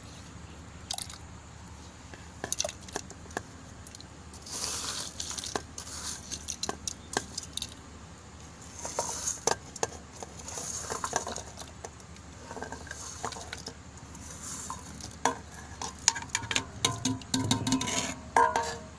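Chopped vegetables and spices tipped from a steel plate into a pressure cooker of horse gram and water: scattered clinks and scrapes of metal on metal, with short splashing rushes as the pieces drop in, the clinks coming thickest near the end.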